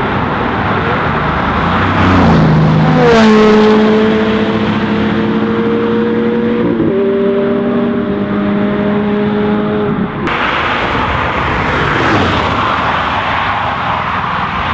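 Ferrari F430 and Bugatti Veyron supercars accelerating hard at high revs, with pitch steps like gear changes. A car passes close by about three seconds in, and the engine sound changes abruptly about ten seconds in.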